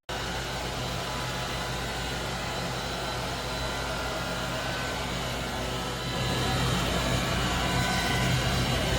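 Oraimo cordless stick vacuum with a 270 W brushless motor running steadily, a whirring hum with air rush; it gets louder about six seconds in.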